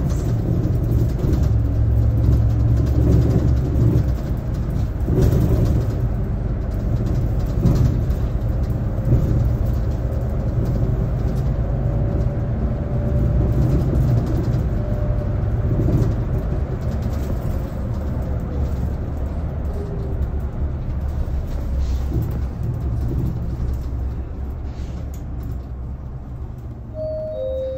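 Low-floor city bus driving, heard from inside the cabin: a steady low engine and drivetrain rumble with road noise, growing a little quieter toward the end.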